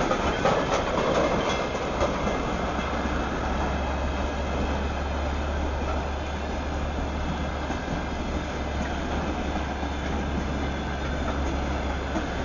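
Freight train's open wagons rolling past at steady speed: continuous wheel-and-rail rumble, with a few louder clacks in the first two seconds.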